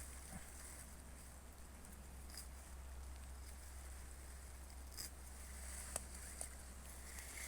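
Faint rustling and a few sharp snaps and clicks, as of footsteps and handling in forest undergrowth, over a steady low rumble.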